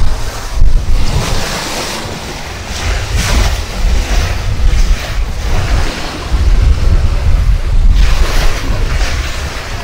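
Wind buffeting the microphone over the rush of sea water along a sailing yacht's hull, with a heavy low rumble and uneven surges of hiss.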